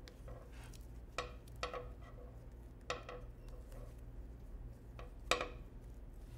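Handling sounds from weaving ribbon through a dream catcher hoop: a few light, sharp taps and clicks with short rustles between, the loudest about five seconds in, over a steady low hum.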